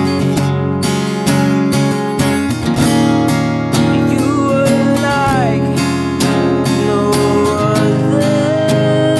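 Acoustic guitar strummed steadily, with a man singing a worship song over it. The voice comes in about four seconds in and again near the end.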